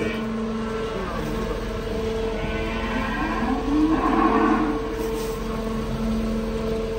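A cow gives one long moo about halfway through, the loudest sound here. Under it runs the steady hum of a horizontal-auger feed mixer turning its augers.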